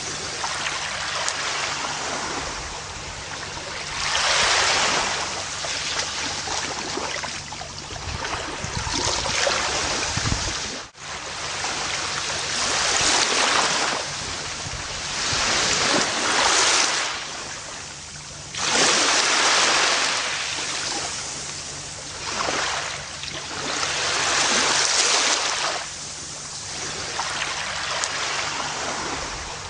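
Gentle ocean waves breaking and washing up the shore, a rushing surge every three to six seconds that swells and fades. The sound cuts out for an instant about eleven seconds in.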